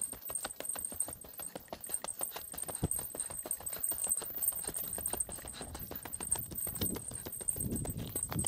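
A hiker's footsteps on a mountain road, a quick steady run of short scuffing steps, with a thin steady high tone behind them. A low rushing sound comes in about halfway through.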